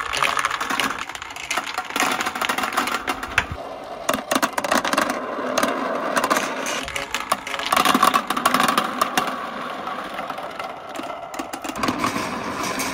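Several plastic balls rolling and rattling through a marble run made of a clear PVC pipe elbow, a plastic rain gutter and spiral plastic buckets, with many small knocks over a continuous rumble. It swells as the balls circle the buckets and goes on as they roll onto a steel rail.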